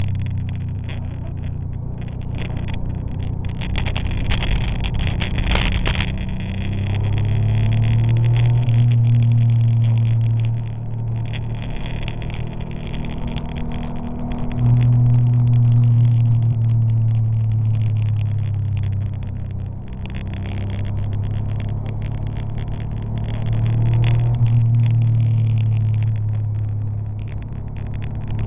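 Porsche 911 (964) air-cooled flat-six engine under way on a wet track, pulling hard in long stretches and easing off in between, its note rising and falling about four times. A brief hissing rush about four to six seconds in.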